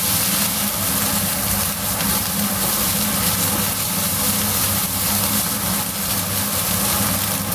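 Beef fried rice sizzling in a nonstick wok as it is stirred and turned with a silicone spatula, over a steady low hum.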